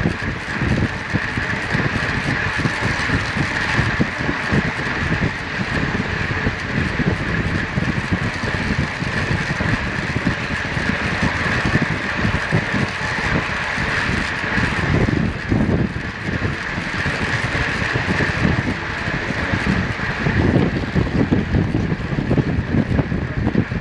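Wind rushing and buffeting over a bike-mounted camera microphone at racing speed, around 30 mph, with the steady whir of a fixed-gear track bike's drivetrain and tyres underneath. The buffeting grows stronger near the end as the speed rises.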